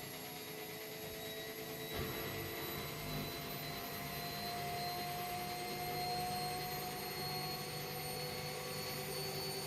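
Washing machine running, its motor whining with several tones that rise slowly in pitch as the drum speeds up. There is a knock about two seconds in, after which the sound gets louder.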